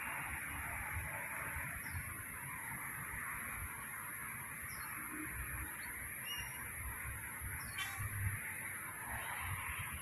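Outdoor ambience: a steady hiss with a constant high whine above it, and a small bird's short, high chirp repeated every two to three seconds.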